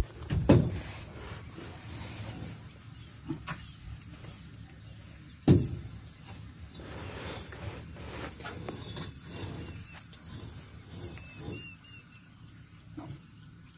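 Two loud thumps about five seconds apart, the first half a second in, over faint bird chirps.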